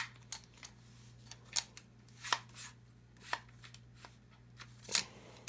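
Handling noise from a SIG Sauer MPX pistol being worked by hand and lifted out of its foam-lined box: a string of irregular light clicks and taps, a few of them sharper and louder.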